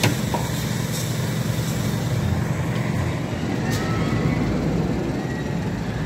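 Construction-site diesel machinery running steadily, a continuous low drone, with a sharp knock right at the start.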